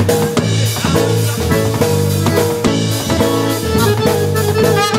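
Live polka band playing, with a drum kit keeping a steady beat of kick and snare hits under held low and mid notes from the other instruments.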